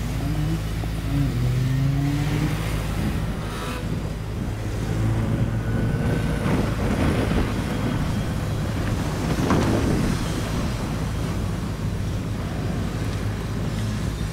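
A tow vehicle's engine running with tyre and road noise as a boat on its trailer is towed along the road, with a louder swell of noise near ten seconds in.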